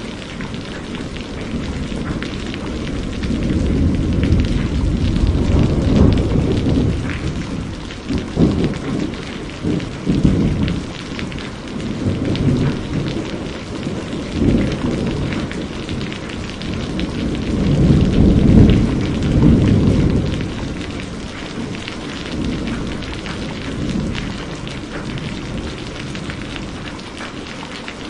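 Heavy rain hissing steadily, with thunder rolling in several low rumbling waves that swell and fade; the loudest rumble comes a little past the middle.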